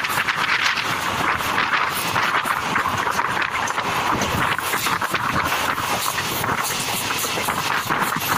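Passenger train running along the line, heard from an open coach window: a steady rush of wind and the noise of the wheels on the rails, with faint clicks scattered through it.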